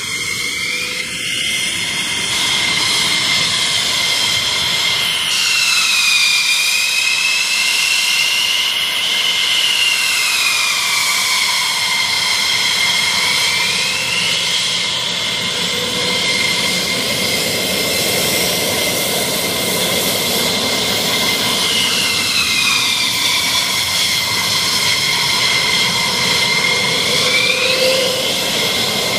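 F-16 fighter jet engines running on the ramp: a steady high-pitched whine with higher tones that slowly dip and rise again, over a constant rush.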